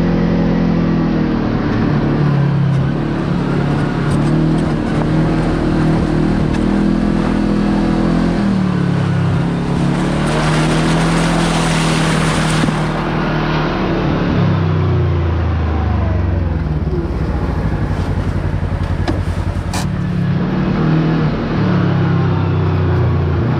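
Kawasaki Teryx KRX side-by-side's engine running under way, its pitch rising and falling with the throttle and dropping lower for a few seconds about two-thirds through. A rush of noise swells for a couple of seconds near the middle.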